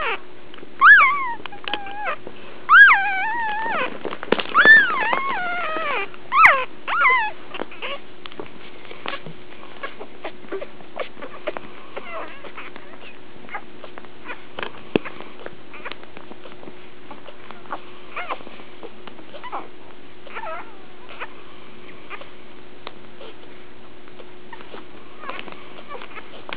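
Day-old Labrador retriever puppies crying in high, wavering squeals and whimpers, loudest and most frequent in the first seven seconds or so, then only occasional faint cries and soft ticks. A steady low hum runs underneath.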